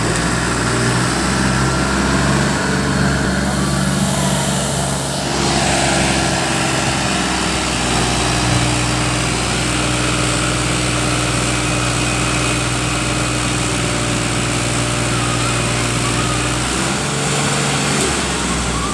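Mahindra tractor's diesel engine running steadily under load as it strains to haul a straw-laden trolley out of waterlogged mud. The engine note changes about five seconds in, holds steady, then changes again near the end.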